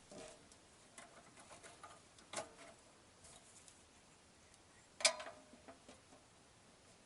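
A few faint, scattered clicks and light knocks, with two sharper knocks about two and a half seconds and five seconds in, the second the loudest.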